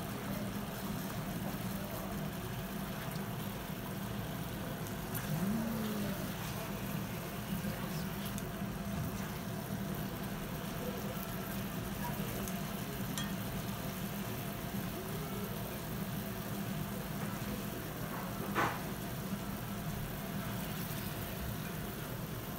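Sukiyaki beef simmering and sizzling in sauce in an iron sukiyaki pot, over a steady low hum. A single short clink sounds near the end.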